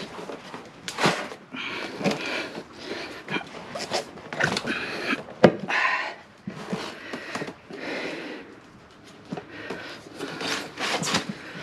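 Motorcycle tire being levered onto its wheel rim by hand: irregular rubbing and scraping of the rubber bead against the rim and tire irons, with a sharp click about five and a half seconds in.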